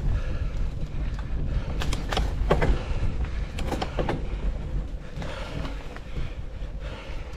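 Mountain bike being ridden, heard through a GoPro: a steady wind rumble on the microphone with rattles from the bike, and clusters of sharp clicks about two seconds and four seconds in.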